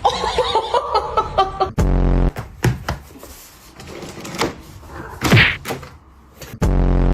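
Dubbed comedy sound effects: a series of knocks and thumps, with two identical short, low buzzy blasts about five seconds apart.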